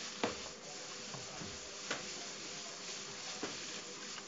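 Chalkboard being wiped with a handheld eraser over a steady hiss, with three light knocks against the board about a second and a half apart, the first the loudest.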